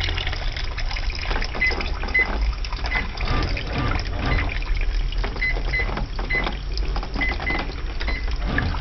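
Brastemp washing machine filling with water for its rinse: water pouring and splashing into the tub over a steady low hum.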